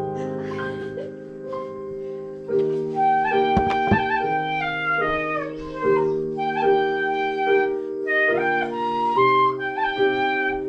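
Shinobue, Japanese bamboo transverse flutes, playing a stepping melody over held low notes, with a sharp knock about four seconds in.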